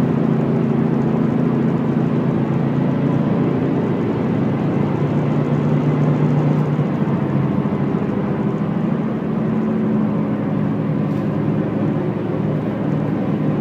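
Cabin noise of a Subaru Impreza hatchback at highway speed: a deep, steady drivetrain drone over road noise, strongest midway and easing slightly near the end. It is the intermittent heavy vibration noise that the driver likens to a propeller or helicopter and suspects comes from a U-joint on the driveshaft.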